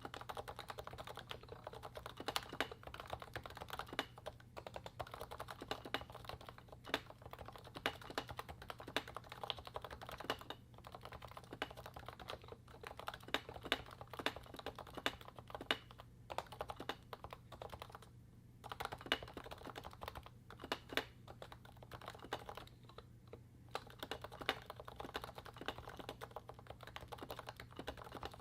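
Fast, continuous typing on a Realforce 87U keyboard with 55 g Topre switches, lubed Novatouch sliders and DEV/TTY MT3 PBT keycaps, a steady stream of keystrokes with two brief pauses in the second half.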